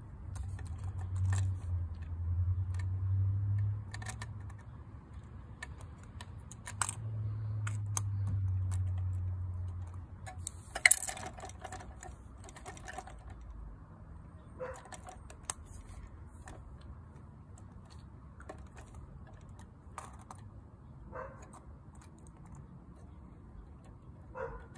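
Light clicks and taps of a First Gear die-cast model garbage truck being worked by hand, its side-loader arm gripping and tipping small toy carts; the sharpest click comes about eleven seconds in. A low hum swells twice underneath in the first ten seconds.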